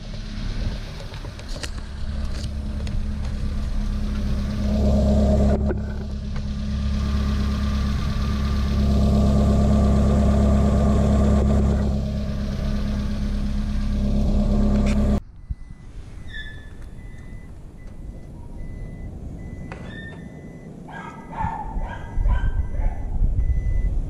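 Subaru Sambar kei truck's engine, mounted under the bed, idling steadily after its coolant leak has been repaired, while the underside is checked for drips. About 15 seconds in the sound cuts away to a quieter stretch with faint repeated high beeps and a few clicks, and the engine is loud again near the end.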